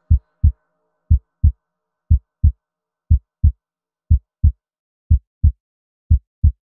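Heartbeat sound effect: pairs of short low thumps, lub-dub, about once a second, with silence between the beats.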